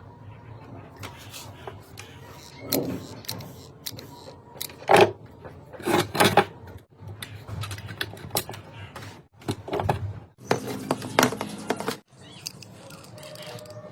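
Irregular clicks, knocks and clatter of small hard parts being handled, louder around the middle.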